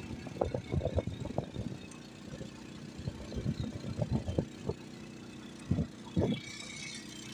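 Engine of an open beach ride car running with a steady hum as it drives over sand. Its body gives off irregular knocks and rattles over the bumps.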